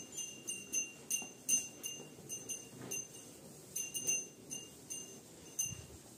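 Small metal bells on feeding cattle clinking irregularly as the animals move their heads, a few bright ringing strikes each second, fewer near the end.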